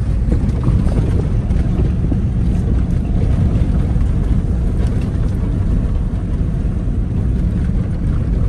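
Loud, uneven low rumbling noise with no clear tone, which starts suddenly about a second before and keeps on throughout.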